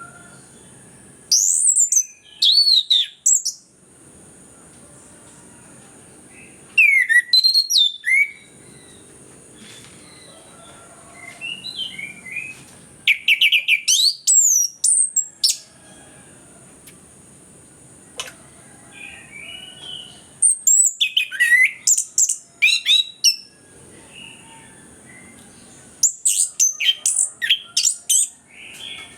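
Orange-headed thrush singing loud, fast, varied phrases of sweeping whistles and chirps, in bursts of a couple of seconds separated by short pauses: the vigorous full song (gacor) that keepers use as a lure.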